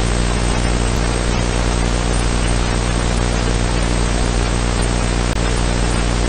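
VHS videotape playback noise: a steady, loud hiss with a low hum underneath.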